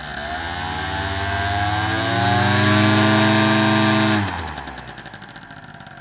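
Propeller engine on a frame stand, revved up and held at high speed, then throttled back sharply about four seconds in to a much quieter idle.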